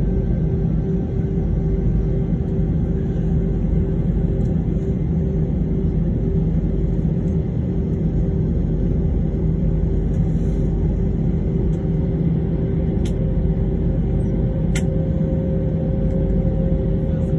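Cabin noise of an Airbus A320ceo taxiing: a steady low rumble with a few steady hums. A higher hum comes in a few seconds before the end.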